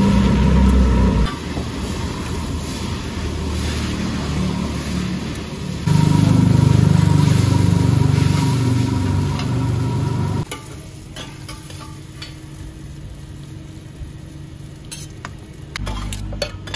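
Flat rice noodles sizzling and being stirred on a large, steaming hot pan, with a low rumble that is loud in the first second and again from about six to ten seconds in. It is quieter after that, and near the end metal utensils click against a steel mixing bowl as the sauced noodles are tossed.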